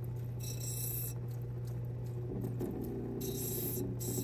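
Lapidary grinding wheel (600 grit) running with a steady motor hum, with short irregular bursts of high grinding noise as the opal is pressed against the wheel.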